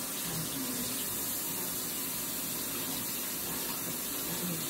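Kitchen faucet running steadily into a stainless-steel sink as hands are washed under it.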